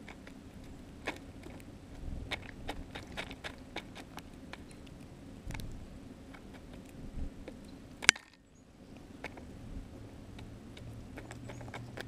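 European starling pecking and probing for seed in snow close to the microphone: irregular soft taps and crunches, with one sharp click about eight seconds in.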